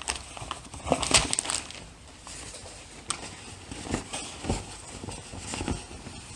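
Packaging rustling and crinkling in irregular short bursts as the apron is handled and pulled out of its wrapping.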